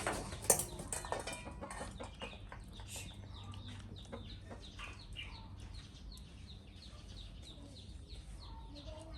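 Repeated short chirping calls and clucks, with scattered clicks throughout and one sharp click about half a second in.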